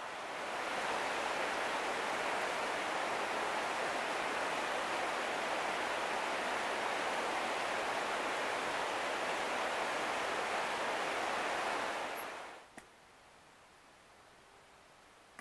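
Creek water rushing over rocks, a steady noise that fades away about twelve seconds in, leaving near quiet.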